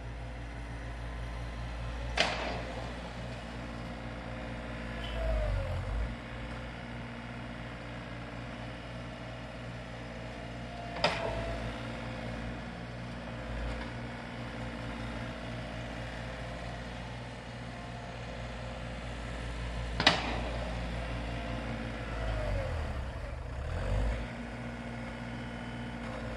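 John Deere 3720 compact tractor's diesel engine running steadily while it plows snow. There are three sharp clanks about nine seconds apart, and the engine surges twice as the tractor works back and forth.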